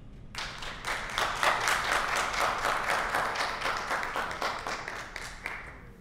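Applause from a small group of people, hand claps, starting just after the start and dying away near the end.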